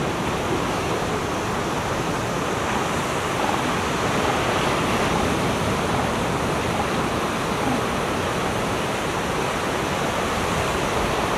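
Steady, even wash of ocean surf breaking on the beach.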